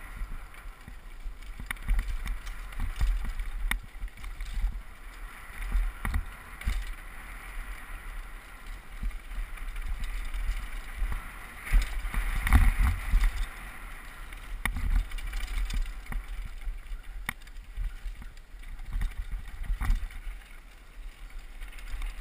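Downhill mountain bike ridden fast over a dirt forest trail: tyres running over the ground and the bike rattling and knocking over bumps, with wind rumbling on the GoPro's microphone. The rumble swells loudest about halfway through.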